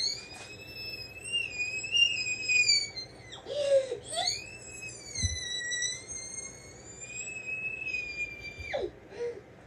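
A young girl's high-pitched excited squeal, rising from a lower pitch and held for about three seconds, then after a short break a second long squeal of about four and a half seconds that drops away near the end.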